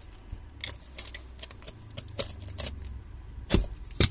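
A parcel wrapped in packing tape and cardboard being cut and pulled open with a snap-off utility knife: scattered crackles and clicks of tape and cardboard, with two louder knocks near the end.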